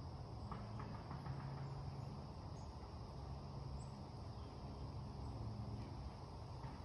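Quiet summer outdoor ambience: a steady high-pitched insect chorus, like crickets, over a low steady hum, with a few faint ticks.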